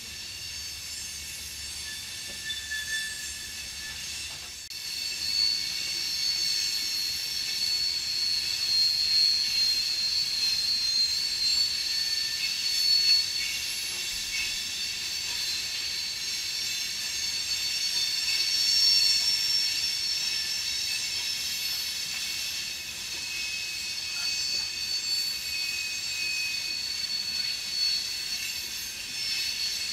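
Loaded rock hopper cars rolling through a curve, their wheel flanges squealing in several steady high tones that shift a little in pitch, over the noise of the rolling wheels. The squeal grows louder about four and a half seconds in.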